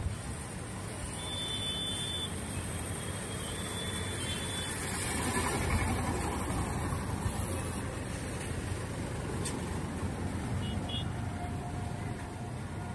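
Road traffic: a steady rumble of motor vehicles and road noise, with two short high-pitched beeps about one and four seconds in.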